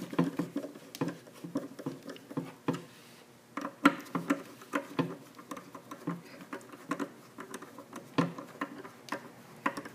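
A screwdriver turning and tightening the screws of a shampoo bowl faucet's cover plate: a run of small irregular clicks and scrapes of metal on metal, with a brief pause about three seconds in.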